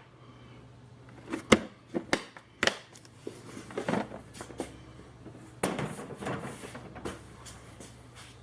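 Tools and equipment being handled: a few sharp clicks and knocks in the first three seconds, then scraping and rustling, over a faint steady low hum.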